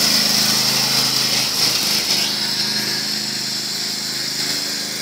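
John Deere riding lawn mower's engine running steadily with the cutting blades engaged, a constant hum that slowly grows fainter as the mower moves away.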